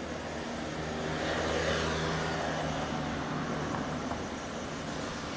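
Kawasaki Z1's air-cooled 903 cc inline-four idling steadily through a black four-into-one collector exhaust. A louder swell of rushing noise builds about a second in and fades away over the next couple of seconds.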